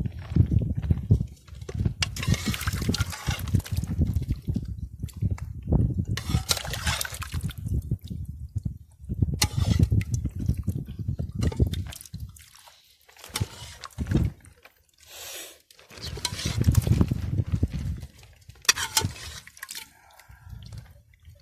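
Broth being ladled and poured over couscous in a serving bowl, in several separate pours with sloshing and dripping.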